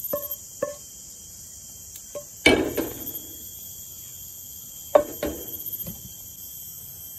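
A wooden spatula tapping and knocking against a frying pan and plate as food is scraped off: a few light ringing taps at the start, then two heavier knocks with a short clatter, about two and a half seconds apart. Insects chirr steadily behind.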